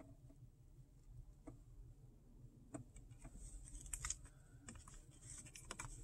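Near silence in a car cabin, with a handful of faint, scattered clicks.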